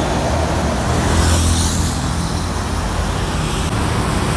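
Diesel engines of large intercity buses running as they drive past close by in road traffic: a steady low rumble, with a brief high hiss about a second in.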